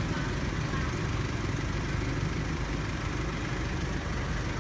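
A motor vehicle's engine idling, a steady low rumble.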